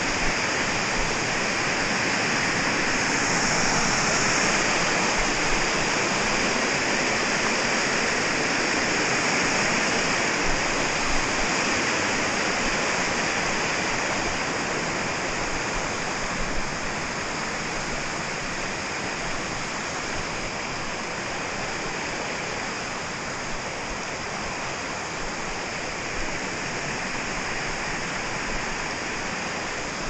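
A small waterfall rushing over rock ledges into a creek: a steady, dense rush of water, loudest in the first half and gradually softer toward the end.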